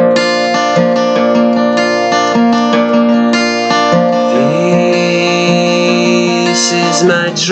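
Acoustic guitar playing the song's introduction: a quick run of plucked and strummed chords, then ringing sustained chords from about halfway, with a held note sliding up over them.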